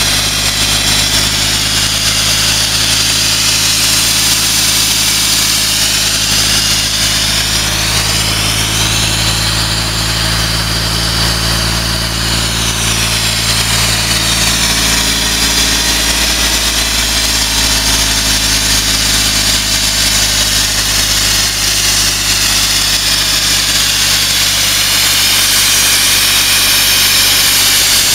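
Three-cylinder diesel engine of a trailer-mounted air compressor running steadily at idle, with a steady hiss over the low engine note.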